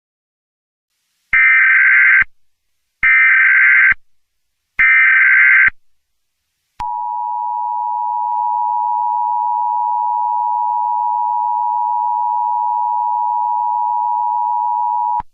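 Emergency Alert System tones: three short bursts of SAME header data, just under a second each, then a steady attention tone held for about eight seconds that cuts off sharply. The sequence signals that an emergency alert message is about to be read.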